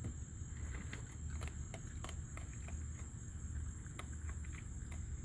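Raccoon crunching nuts as it eats: a scatter of short, sharp crunches and clicks, over a steady high-pitched insect drone.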